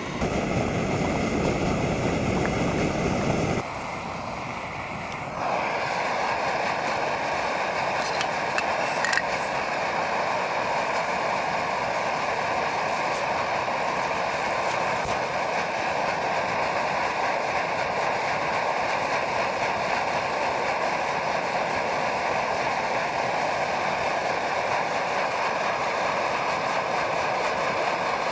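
A low rushing noise for a few seconds, then a portable gas camping stove burner running with a steady roar from about five seconds in, heating a meal.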